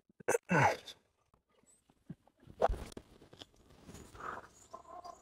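A 4-iron strikes a golf ball off the fairway: one sharp, crisp hit about two and a half seconds in. The loudest sound comes just before it, near the start: a short sound falling in pitch.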